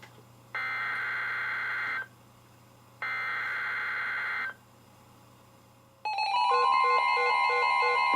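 NOAA Weather Radio SAME header data bursts, warbling two-pitch digital tones about a second and a half long with a one-second pause between: the last two of the three header bursts that open a Flood Warning alert. About six seconds in, a louder steady alert tone begins.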